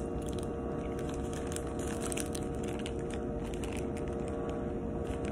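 Eating sounds: biting and chewing a soft bread roll while its wrapper crinkles in the hands, over a steady background hum.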